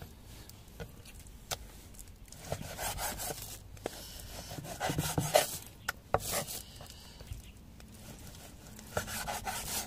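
Chinese cleaver cutting raw beef on a wooden cutting board: rasping, sawing strokes through the meat in several short spells, with scattered knocks of the blade on the board. The cleaver is a bit blunt.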